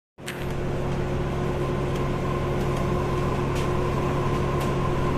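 Steady electrical hum and air-handling drone inside a Tokyo Monorail car standing at the platform, with a few fixed tones and several faint clicks.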